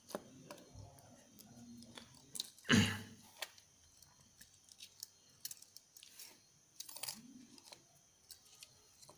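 Plastic clicks and knocks from a magnetic contactor being taken apart by hand, as its housing, coil and parts are pulled loose and set down. A louder knock comes about three seconds in.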